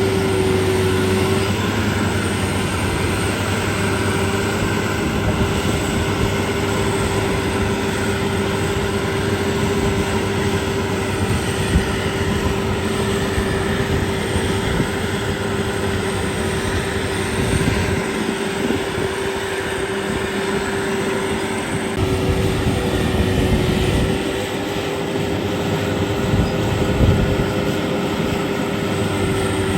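Kubota DC688Q combine harvester running steadily under load as it cuts rice: a continuous engine and machinery drone with a steady whine over it.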